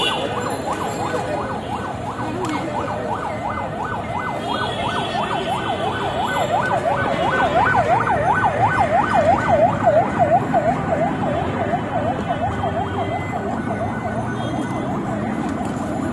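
Emergency vehicle siren in a fast yelp, its tone sweeping up and down about four times a second. It grows louder toward the middle, then fades as it passes, over a background of street noise.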